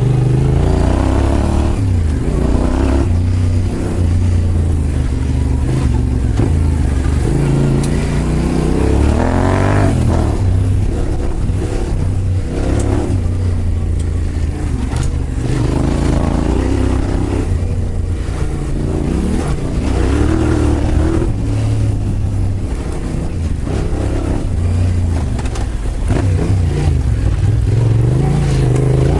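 Yamaha Ténéré 700's parallel-twin engine through a Yoshimura full exhaust with an ECU flash, ridden under throttle. The pitch climbs and drops back several times as it accelerates and shifts.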